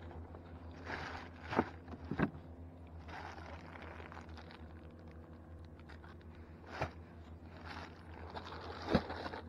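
Handling noise on a plastic fishing kayak: rustling and scraping with several sharp knocks, the loudest near the end, over a low steady hum.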